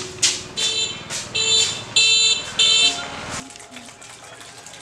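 Electric scooter's alarm beeping four times, about two beeps a second, then cutting off suddenly.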